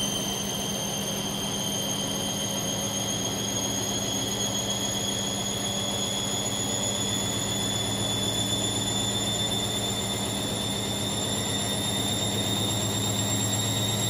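Candy Smart washing machine on a 1400 rpm spin cycle, its drum motor giving a high whine that climbs slowly in pitch as the drum speeds up, over a steady low hum.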